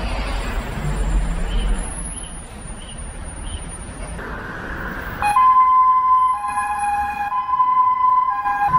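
Low rumble of city street traffic. About five seconds in, a loud electronic two-tone siren starts suddenly, one of its pitches switching about once a second.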